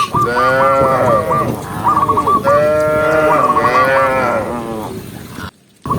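Cattle mooing: two long, drawn-out moos, with quick runs of high repeated chirps over them. The sound cuts out abruptly shortly before the end.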